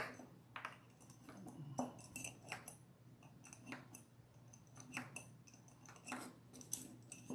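Faint scattered clicks and light taps, roughly one a second, of a small hex key and screws being turned by hand through an acrylic end plate into the rails.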